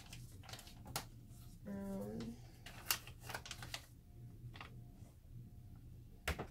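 Light irregular clicks and taps of small plastic measuring cups and spoons as mica powder is scooped and tapped into plastic bowls of soap batter. A short hummed voice sound with a slightly rising pitch comes about two seconds in.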